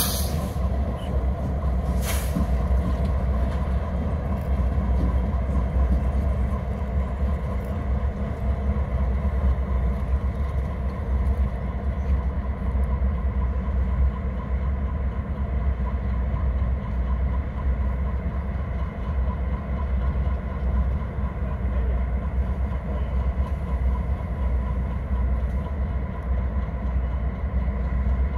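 Canadian Pacific F-unit diesel locomotives and red road units running at low throttle as they back slowly through the rail yard toward a train for coupling: a steady low rumble.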